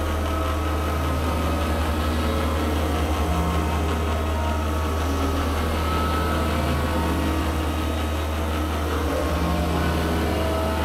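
Electronic drone score: a steady deep hum with short, scattered higher tones drifting over it.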